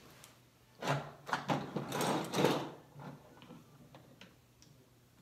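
Screwdriver tightening the stock screws of a Diana 240 Classic air rifle in its wooden stock: about two seconds of quick clicks and scraping starting about a second in, then a few light ticks.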